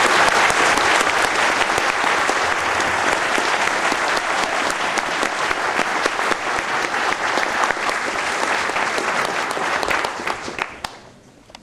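Audience applauding: a long, steady round of clapping that dies away about ten seconds in.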